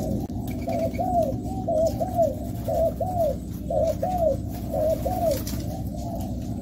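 Several spotted doves cooing together: a quick run of short, arched, overlapping coos.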